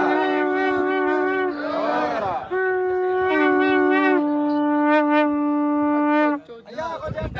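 Conch shells blown in long held notes, two at slightly different pitches sounding together, with crowd shouts rising briefly near the start and about two seconds in. The notes stop abruptly about a second before the end.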